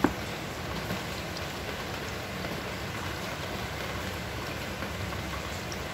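A plate carrying an upturned plastic pudding mould knocks once on the table, followed by a steady, even hiss of background noise.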